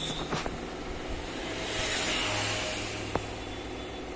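Steady background noise with a passing road vehicle that swells and fades across the middle, and a couple of faint clicks.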